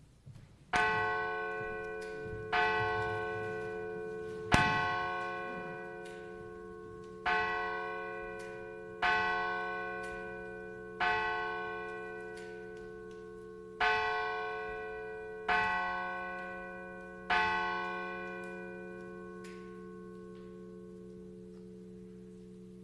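A church bell tolling nine strokes in three groups of three, each stroke on the same note and ringing on, the last one left to fade out.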